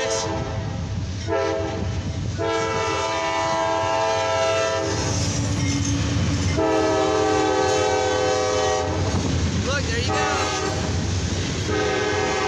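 Freight locomotive's air horn sounding several held blasts for the grade crossing, separated by short gaps, over the low rumble of the passing diesel train.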